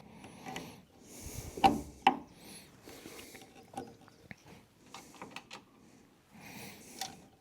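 Small clicks and knocks of hands working a plastic air line into its fitting, two sharper knocks about two seconds in, with heavy breaths of effort.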